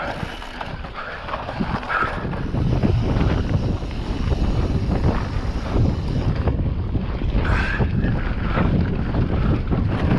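Wind buffeting the microphone of a mountain bike's on-board camera, with the low rumble and clatter of the bike riding fast over rough trail. It gets louder about two seconds in.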